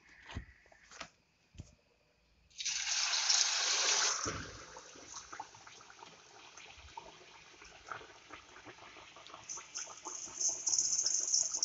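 A few soft clicks and handling sounds as a rice-flour ney pathiri dough disc is lifted off a banana leaf. Then the disc goes into hot oil in a steel wok: a loud sizzle starts suddenly about two and a half seconds in, settles to a steady frying hiss, and grows louder again near the end.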